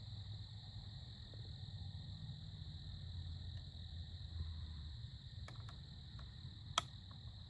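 Steady high-pitched chirring of crickets and other insects in an outdoor evening chorus, over a low wind rumble, with a few faint ticks and one sharp click near the end.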